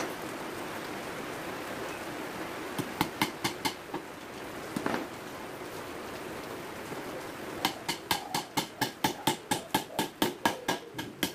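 Hammer driving nails into a wooden board: a handful of quick blows about three seconds in, then a fast run of about twenty blows, four or five a second, in the last four seconds.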